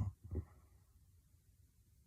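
A heavy snore breaks off at the very start, followed by a short breath about half a second in, then quiet breathing: the pause between one heavy snore and the next from a sleeping young woman.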